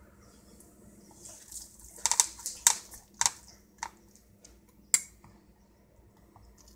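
Kitchen knife cutting down through a cooked salmon fillet on a wooden plank: a quick run of sharp clicks and crackles from about two to five seconds in, ending with a single sharp click.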